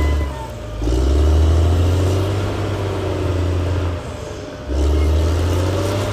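Caterpillar D6R XL bulldozer working: its diesel engine running under load with a steady low rumble and track noise. The rumble drops away briefly twice, just after the start and about four seconds in, then comes back.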